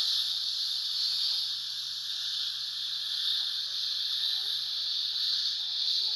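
Steady, loud hiss of steam venting from a steam locomotive's open cylinder drain cocks as the engine moves along.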